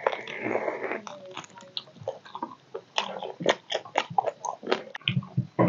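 A person biting and chewing meat off a curried squirrel: many short, irregular clicks and crackles of teeth and mouth on the meat.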